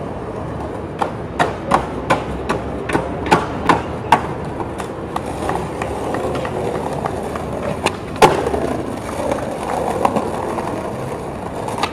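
Skateboard wheels rolling on pavement with a steady rumble, broken by a quick run of sharp clacks of the board against the ground in the first few seconds and one loud crack about eight seconds in.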